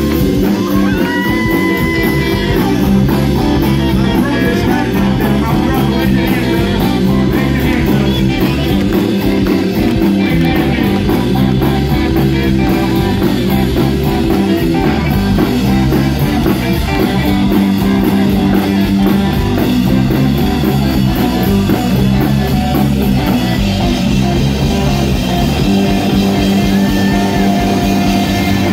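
Live band playing an upbeat number at a steady loud level: electric guitars, electric bass and drum kit.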